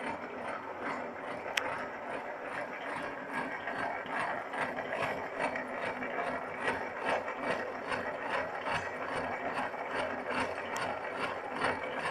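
Horizontal milling machine running under power feed, its multi-point cutter cutting a tooth space into a spur gear blank: a steady mechanical clatter with a regular ticking. A sharp click comes about a second and a half in and another near the end.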